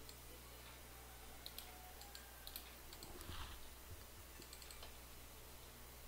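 Faint, scattered clicks of a computer mouse and keyboard over a steady low hum, with a soft, muffled thump about halfway through.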